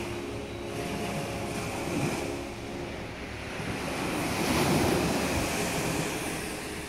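Small sea waves breaking and washing up a sandy beach, the surf swelling to its loudest about two-thirds of the way in, with wind buffeting the microphone.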